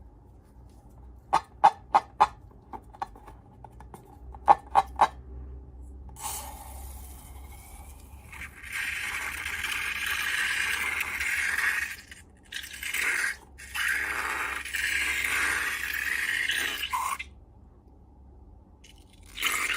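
Slime-making sounds: a few quick sharp clicks in two clusters, then a long scraping, hissing noise with two short breaks that stops shortly before the end, returning right at the end.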